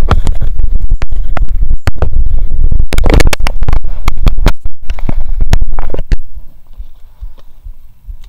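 Loud scraping and knocking right on the action camera's microphone, overloading it, with many sharp clicks, as the camera is handled and repositioned; it drops to a quieter rustle about six seconds in.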